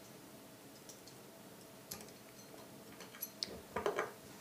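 A few light metallic clicks and taps from handling the HW80 air rifle's barrel, breech block and small parts such as shims and a punch: one about halfway through, then a quick run of clicks near the end.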